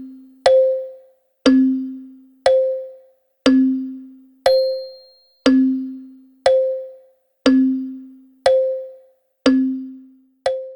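Wall clock ticking once a second in an even tick-tock: each sharp click rings briefly, alternating between a lower and a higher tone.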